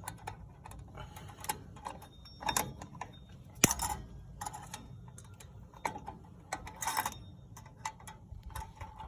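Irregular light metallic clicks and taps of rear drum brake hardware being handled as the adjuster cable is fitted and clipped down, with one sharp click about three and a half seconds in.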